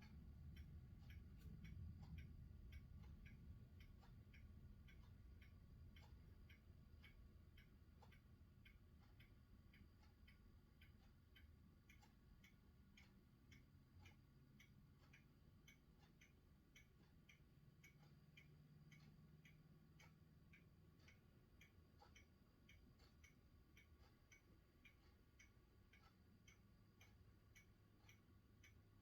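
Very quiet: faint, regular ticking, about three ticks a second, over a low rumble that fades over the first few seconds.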